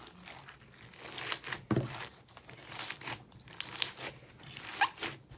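Glittery slime packed with foam beads and gems being kneaded and squeezed by hand, giving irregular crunching and crackling with sharp little pops.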